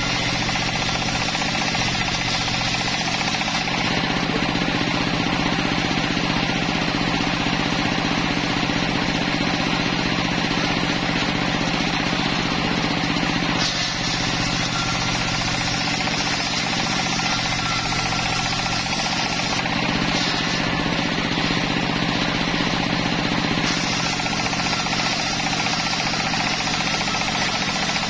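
Homemade table circular saw running steadily and ripping wooden planks lengthwise. A steady machine drone lies under a hissing cutting noise that shifts several times as boards are fed through the blade.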